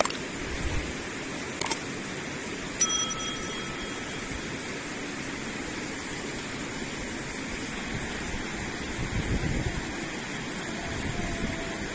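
Fast, muddy river rushing steadily over stones. Under it, a click comes a little under two seconds in, then a short notification bell dings about a second later: the sound effect of a YouTube subscribe-button overlay.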